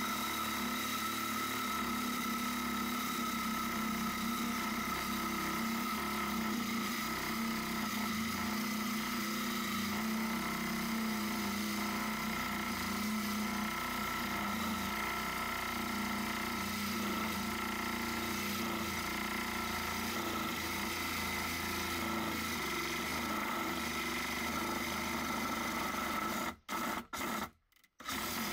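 Milwaukee 12-volt compact reciprocating saw with a wood-cutting blade running steadily with a constant whine as it cuts an access opening through a wooden cabinet panel. Near the end it stops and starts several times in quick succession.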